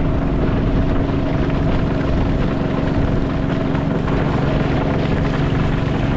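Boat engine running at a steady speed, a constant drone with an even pitch, heard from on board the moving river boat.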